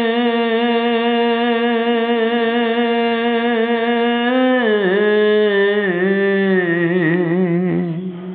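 A solo voice singing a Bengali song holds one long note, then slides down through a wavering, ornamented run and fades out near the end.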